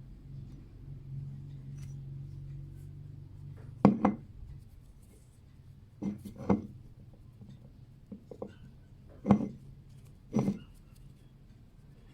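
A series of sharp clicks and knocks from hard objects being handled, some in quick pairs, the loudest about four seconds in and again near the end, over a low steady hum at the start.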